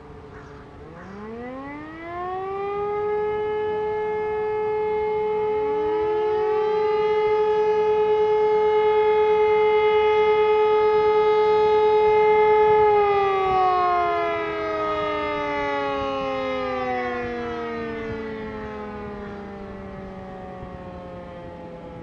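Two E57 electromechanical motor sirens sounding one blast of the German fire-alarm (Feueralarm) signal. The nearer one spins up about a second in to a steady wail, and the farther one joins a few seconds later. Both hold their tones, then wind down, the nearer one first, their falling pitches trailing out near the end.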